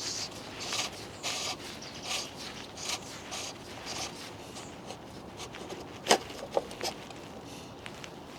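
Hand work on the BMW E46's oil filter housing: a run of short scraping strokes, about two a second, then three sharp metallic clicks about six seconds in.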